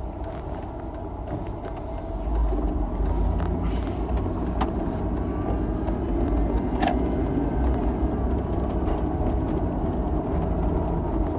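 Vehicle engine and road rumble heard from inside the cab while driving slowly, getting louder about two seconds in, with a few faint clicks.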